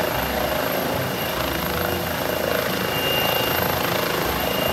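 A Eurocopter EC135 air-ambulance helicopter lifting off into a low hover, its rotors and twin turbines running at full power. Steady rotor noise with a low pulse and a thin, steady turbine whine over it.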